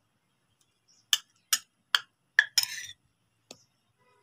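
Spoon knocking against a mixing bowl to drop off ground ginger-garlic-green-chilli paste: four sharp taps about half a second apart, then a short scrape and one faint tap.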